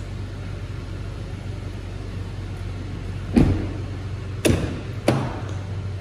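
Doors of a 2017 GMC Acadia: a heavy door thump a little over three seconds in, then two sharper clunks about a second and a half later as the rear door is unlatched and opened, over a steady low hum.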